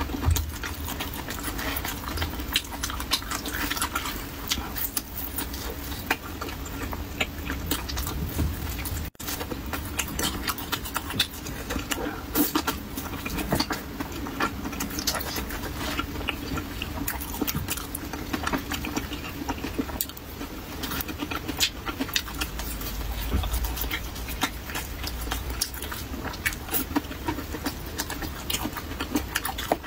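A person biting and chewing soft, oily pan-fried pumpkin cake up close, with many quick wet mouth clicks and smacks.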